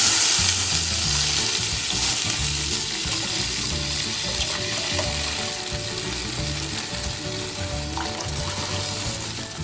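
Rasam liquid hitting a kadai of hot coconut-oil tempering: a loud sizzle that slowly dies down as the liquid cools the pan.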